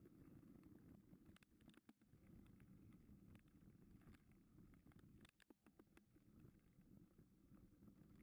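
Faint, muffled rumble of a mountain bike rolling over a dirt track, with a few short knocks from bumps in the ground, twice in quick clusters.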